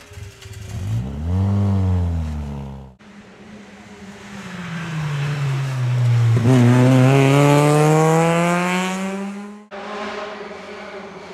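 Peugeot 106 rally cars' four-cylinder engines, heard one after the other with abrupt cuts between. The first revs up and falls away in a quick arc as it passes. The second winds down off the throttle into the corner, then revs hard and climbs in pitch as it accelerates out.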